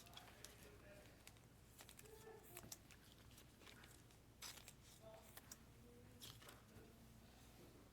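Near silence with faint, scattered clicks and rustles of trading cards being handled and slid past one another.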